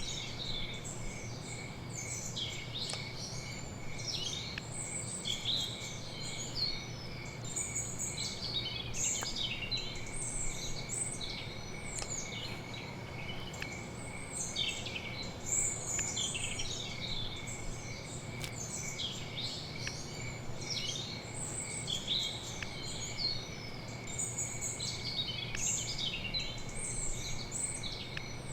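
Many small birds chirping and twittering continuously, over a steady high trill and a low hum.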